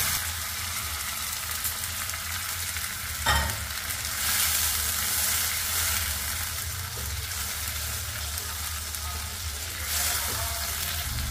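Ground mustard-seed and red-chilli masala paste, thinned with a little water, sizzling in hot mustard oil in a kadhai and being stirred with a wooden spatula. A single sharp knock comes about three seconds in, and the sizzle swells a second later and again near the end.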